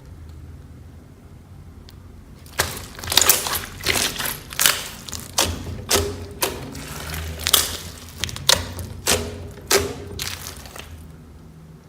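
Slime being squeezed and pressed by hand, a run of wet squelching crackles that starts a couple of seconds in and stops shortly before the end.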